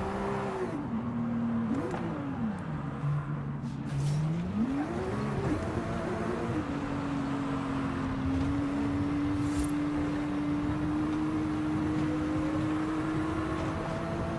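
Sports car engine revved up and down in several quick blips, dropping back low in between, then held at a steady engine speed from about halfway through.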